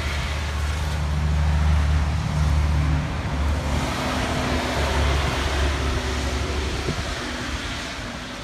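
Hail falling with a steady hiss, under the low hum of a motor vehicle's engine running close by, which fades after about six seconds.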